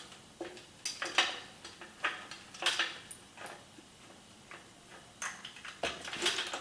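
Irregular metallic clicks and clinks, a few a second, from small bicycle parts and hand tools being handled and fitted on mountain-bike handlebars.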